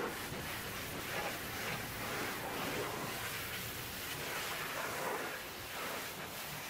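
High-pressure washer lance jetting water onto the steel underside of a tipped-up dump truck bed: a steady rushing spray on the metal.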